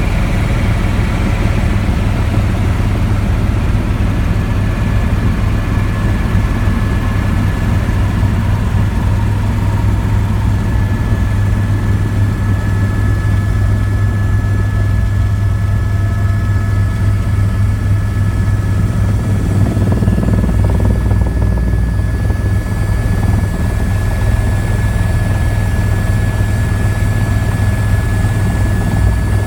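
Helicopter engine and rotor running steadily, a loud constant low drone with a thin high whine that sets in about four seconds in.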